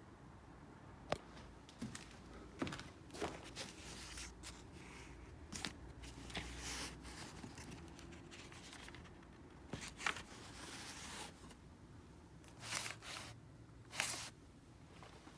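Scattered light knocks, clicks and scrapes, with a few short crunching or rustling stretches, from someone moving about and handling things.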